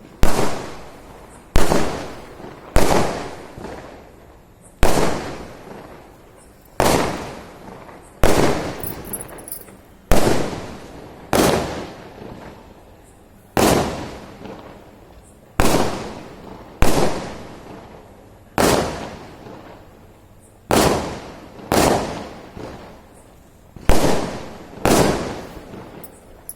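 Firecrackers bursting one after another: about sixteen loud, sharp bangs, one every one to two seconds, each echoing away before the next.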